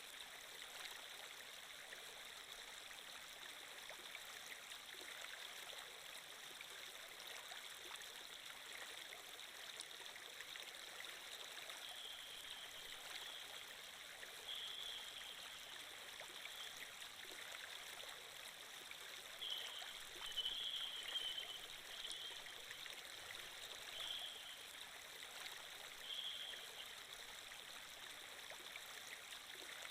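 Steady flowing water, a stream sound effect, with a few brief higher sounds over it in the second half.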